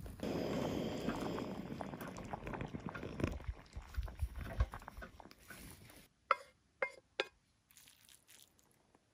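Camp cooking: noodles stirred and scraped in a pot with a wooden spatula, a dense rustling and clicking for the first few seconds. Then three short knocks with a brief ring as the utensil strikes a ceramic bowl while serving, and quiet after.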